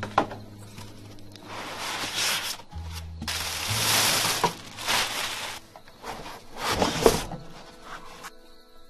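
Plastic packaging bag rustling and cardboard and foam packing rubbing as a power station is unwrapped and lifted out of its box, in several bursts with a few knocks. Quiet background music underneath.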